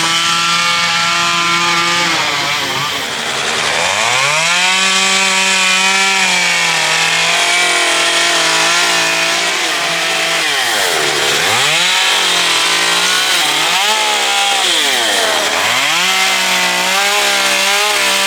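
Small engine running at high speed, pitch mostly steady, dropping sharply and surging back up twice in the second half, as when the throttle is let off and opened again.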